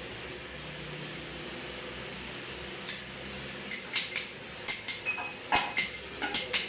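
Metal tools and engine parts clinking and clanking against each other, a quick run of sharp knocks starting about three seconds in, over a steady low hum.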